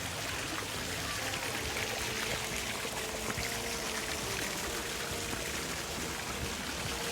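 Water rushing steadily over a waterfall.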